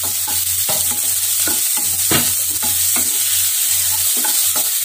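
Onions, shallots and tomato sizzling in sesame oil in a non-stick frying pan, with a steady hiss. A wooden spatula stirs them, scraping across the pan in short strokes, about two or three a second.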